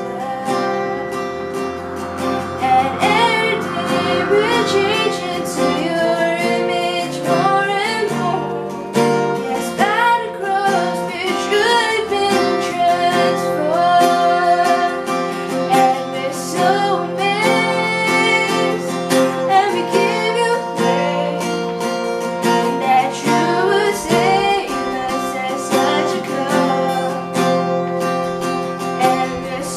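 A woman singing a worship hymn of thanks for the cross, accompanying herself on a strummed acoustic guitar.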